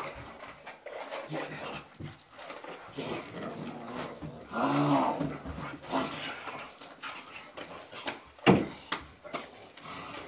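A young dog growling and scuffling as it tugs on a toy held by its handler, in a tug-of-war game. There is one sharp knock about eight and a half seconds in.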